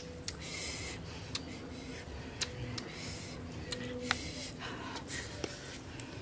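Wooden skewers being pushed through small whole fish and handled against rock: short scraping rustles and scattered small clicks and taps.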